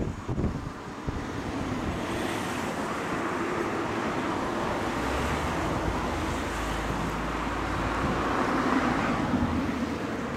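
Road traffic passing close by: tyre and engine noise that swells over several seconds and fades again, with a low engine hum in the second half.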